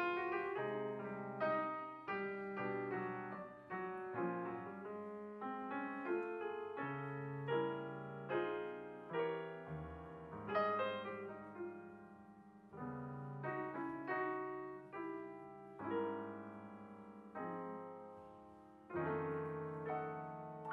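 Grand piano playing a solo jazz passage with no other instrument: chords and melody notes struck one after another and left to ring and fade, over a left-hand bass line.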